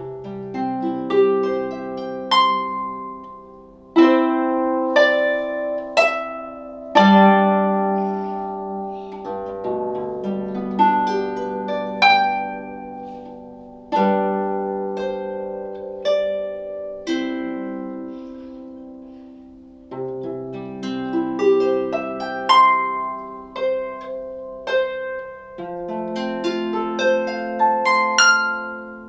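Solo lever harp played by hand: plucked notes and chords ring on and overlap above low bass notes in an unhurried tune. The playing begins right at the start.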